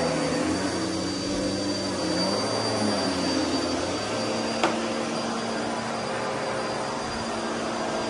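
Upright vacuum cleaner running on carpet, a steady motor hum whose pitch shifts about four seconds in as the head is moved. A single sharp click sounds a little after that.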